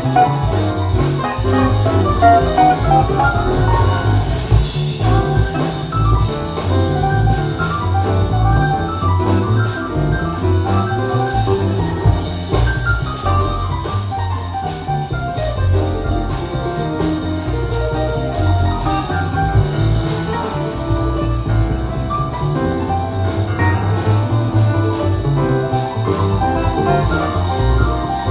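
Jazz record playing on a hi-fi system: a continuous tune with pitched instrument notes over a steady low beat.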